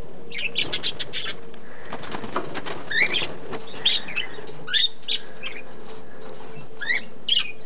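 Aviary of budgies and cockatiels: short chirps and rising calls throughout, with bursts of wing flapping about half a second in and again around two to three seconds in.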